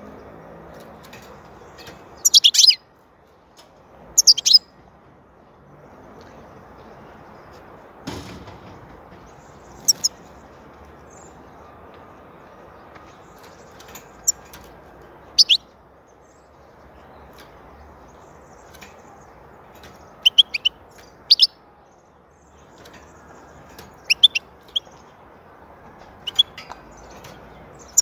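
Caged European goldfinch giving short, high chirps and twitters in scattered bursts every few seconds, over a steady background hiss, with a single thump about eight seconds in.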